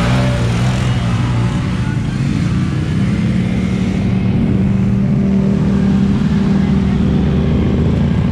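Side-by-side UTV engine running under way, its drone stepping up in pitch about three seconds in and then holding steady.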